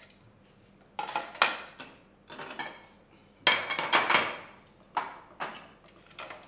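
Serving utensils and cutlery clinking and scraping against plates and dishes as food is dished out at a table: about eight separate clinks, each sharp at the start and quickly fading, the loudest run around the middle.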